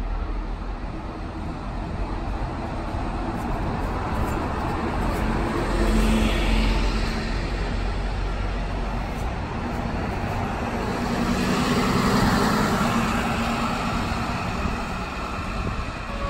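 Mercedes-Benz city bus driving up and passing with its engine running, over street traffic noise; the sound swells twice, about six and twelve seconds in.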